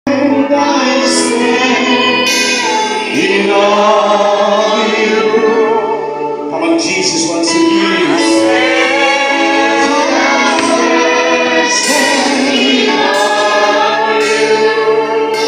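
Live gospel worship music: women's voices singing together with vibrato, over steady held notes from an electronic keyboard.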